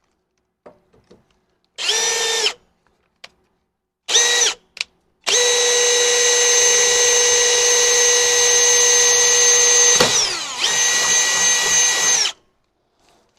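Cordless drill/driver motor whining in trigger pulls: two short bursts, then a run of about five seconds that dips briefly in speed, then one more run that stops sharply.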